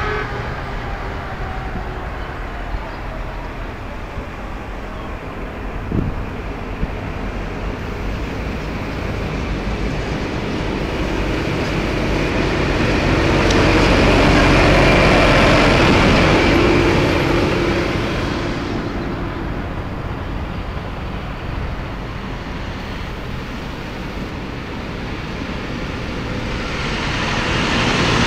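Diesel tractors drive past one after another, engines running and tyres on the tarmac. A red Case IH CS-series tractor passes close at about the middle and is loudest then, and another tractor comes up loud near the end. A single sharp knock sounds about six seconds in.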